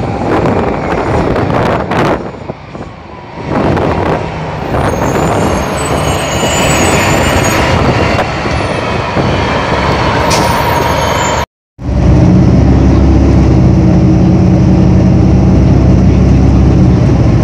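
New Flyer D40LF diesel transit bus driving past on a turn, engine and tyres with some wind on the microphone. After an abrupt cut about eleven seconds in, a D40LF bus idling close by with a steady, loud, low engine drone.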